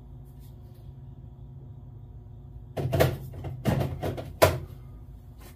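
Hard plastic knocks and clicks of a cordless grinder's battery pack being handled and pulled for charging, in three short clusters over about two seconds, starting about three seconds in. A steady low hum runs underneath.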